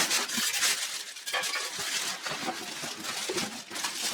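Packaging from a large appliance box being handled and pulled away during an unboxing: irregular rustling and scraping with scattered light knocks.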